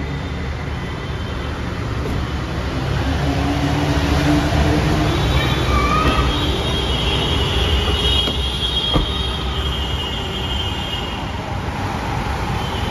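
Loud street traffic rumble with a high squeal through the middle, and a single knock about nine seconds in.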